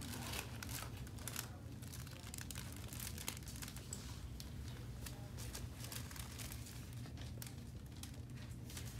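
Paper exam-table liner crinkling in scattered crackles as a baby is handled on it, thickest in the first second or so, over a steady low hum.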